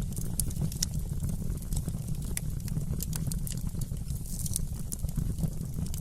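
Wood fire in a fireplace crackling: scattered sharp pops and snaps over a steady low rumble.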